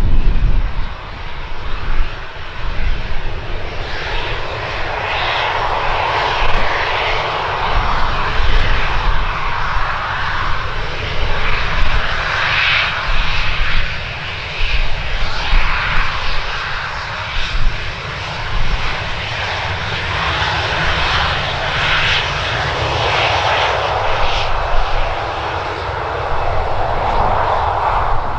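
Boeing 737-800's CFM56 turbofan engines running at low taxi thrust as the airliner turns on the runway: a continuous jet rush and whine that swells and eases as the aircraft swings round.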